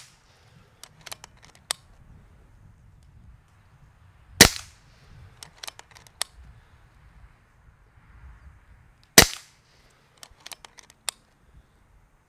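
Two shots from a Kral Puncher Breaker .22 PCP air rifle, about five seconds apart, each followed a second or so later by a few light clicks.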